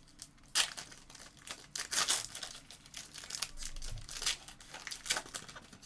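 Foil wrappers of 2018-19 Revolution basketball card hobby packs being torn open and crinkled by hand, in irregular bursts of rustling.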